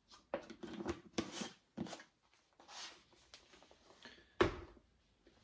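A plastic supplement tub being handled on a stone countertop: a run of clicks, scrapes and rustles from the tub and its lid. A sharp knock, the loudest sound, comes about four and a half seconds in.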